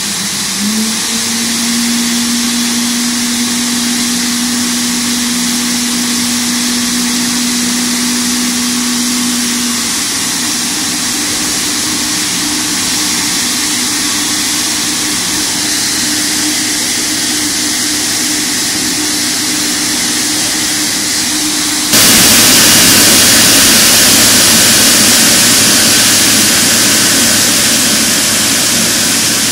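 GE90-115B turbofan on a Boeing 777-300ER running on the ground: a steady roaring hiss with a hum under it that shifts up in pitch about a third of the way in. About three-quarters of the way through, the sound gets abruptly louder and brighter. It is a maintenance run-up after a water wash, to clear water from the engine core.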